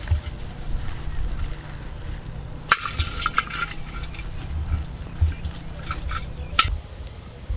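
A plastic bag rustling and crinkling as hands rummage inside it, with a cluster of sharp crinkles about a third of the way in and another near the end, over a steady low rumble.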